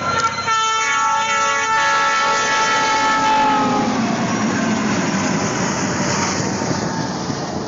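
Train horn sounding a chord of several notes, breaking off and leaving one long note that sags slightly in pitch as it fades, about four seconds in. After it comes the steady noise of the train going by.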